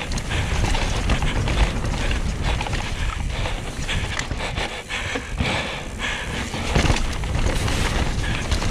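Mountain bike running fast down a wet dirt trail: wind buffeting the camera microphone, with tyre noise and a steady clatter of knocks and rattles from the bike over bumps.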